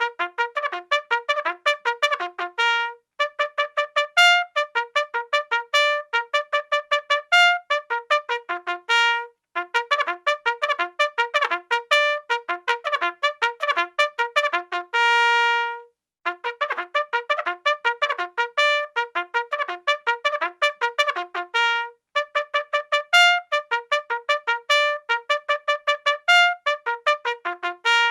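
Bugle playing a fast military-style call: quick tongued notes in short phrases, each phrase ending on a held note, with one long sustained note about halfway through.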